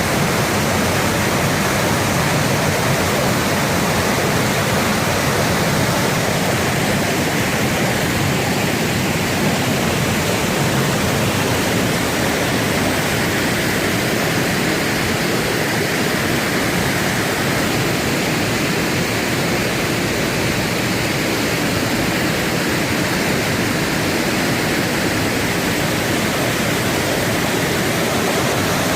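Waterfall rushing: a loud, steady, unbroken sound of falling water.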